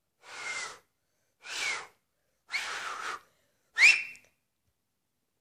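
Finger whistling: four breathy blows, mostly rushing air with only a faint whistle note. The last is the loudest, a short whistle rising in pitch.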